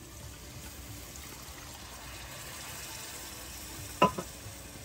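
Water poured into a pan of frying tomato and spice masala, which sizzles steadily; a brief knock about four seconds in.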